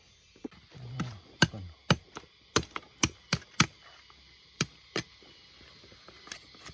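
An irregular run of sharp taps and knocks, about a dozen in five seconds, with a duller thump about a second in and a few fainter clicks near the end, like hand work on wood or bamboo.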